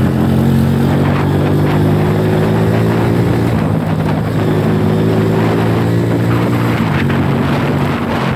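Motorcycle engine running steadily under way, its note dipping slightly about halfway through, over a steady rushing noise.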